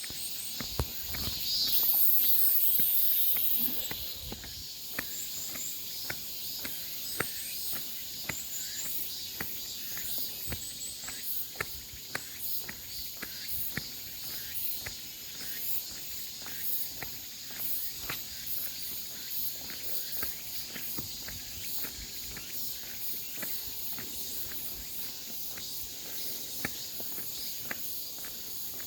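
Footsteps walking at a steady pace, about two steps a second, under a steady high chorus of insects. About two seconds in, a louder high hissing buzz rises over the chorus for a second and a half.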